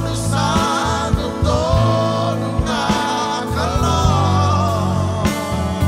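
Live gospel worship song: voices singing a melody over a band of stage piano, bass guitar and drums.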